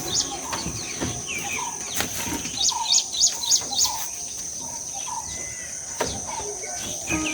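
Wild birds chirping and calling, with a run of about four quick high chirps around three seconds in, over a steady high-pitched insect drone.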